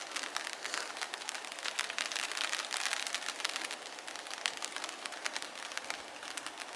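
Steady rain falling on surfaces, with a constant hiss dotted with many small drop clicks.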